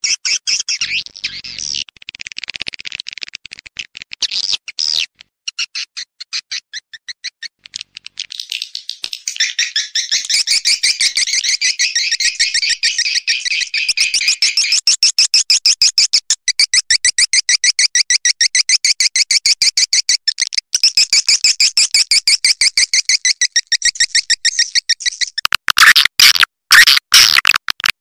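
Swiftlet calls, the kind played as a lure call: rapid, continuous trains of high twittering chirps. They thicken and grow louder about a third of the way in, and turn into louder, coarser bursts with short gaps near the end.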